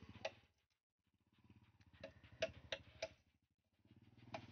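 Faint sharp taps, about three a second, in two short runs over a low buzzing rattle.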